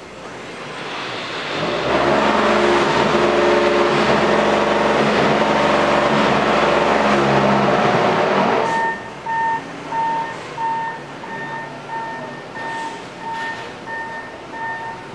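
Wheel loader's diesel engine revving hard under load as the bucket is raised to tip aggregate into a batching hopper. After about eight and a half seconds it drops back, and a reversing alarm starts, beeping in a steady rhythm of about one and a half beeps a second.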